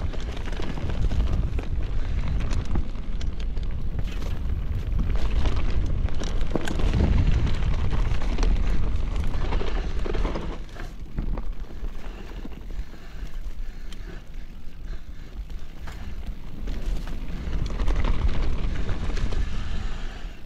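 Mountain bike riding rocky singletrack, with wind rumbling on the microphone and the bike and tyres rattling and knocking over stones. The rumble is loud through the first half, eases off about halfway, and picks up again near the end.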